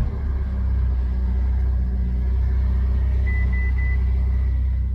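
Ferrari 488 GTB's twin-turbo V8 idling steadily just after start-up, a deep even rumble through an Fi Exhaust full system with catless downpipes. Three short electronic beeps sound a little over three seconds in, followed by a thin held tone.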